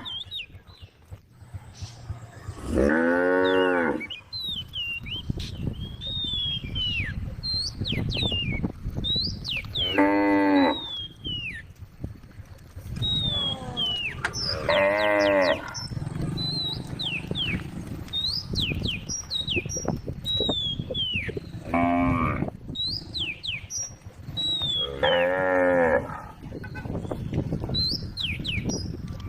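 Cows mooing: five long, low calls of about a second each, spread across the stretch, with short high chirps between them.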